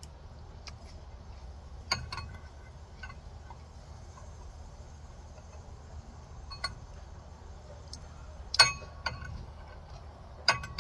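Spoon clinking against a cereal bowl: scattered single clinks, each with a short ring, the loudest a little past the middle. A low steady hum runs underneath.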